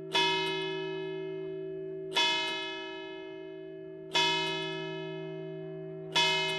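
A single cathedral church bell struck slowly, about once every two seconds, four strokes, each one ringing on and fading before the next.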